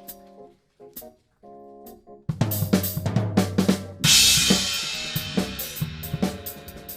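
Big band music with a drum kit. Held chords and a few light drum hits open it, then about two seconds in the whole band and the drums come in loud. A big cymbal crash lands about four seconds in, followed by busy snare and kick strokes under the ensemble.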